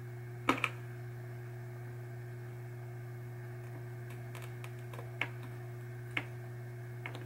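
Steady low electrical hum, with a few light clicks and taps of small tools on the pop bumper's metal parts during desoldering. The sharpest click comes about half a second in, and two fainter ones come later.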